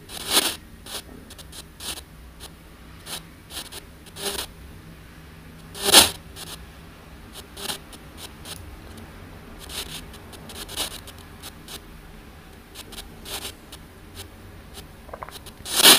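Handheld ANC-Mini spirit-communication device scanning: irregular short clicks and bursts of static over a low steady hum. A louder burst comes about six seconds in and another near the end.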